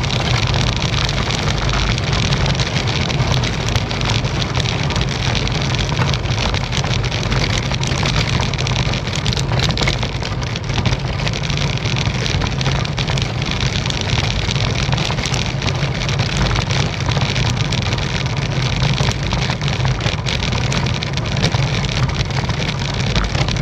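Road bike rattling over cobblestones, heard from a handlebar-mounted camera: a continuous dense clatter over a steady low rumble.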